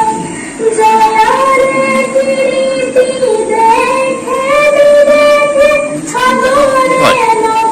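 A girl singing a slow melody solo, holding long notes and stepping between pitches.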